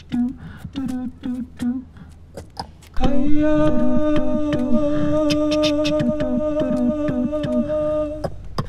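Beatboxing into a handheld microphone: sharp mouth clicks and short vocal hits, then about three seconds in a loud held vocal note comes in over the clicking beat and cuts off shortly before the end.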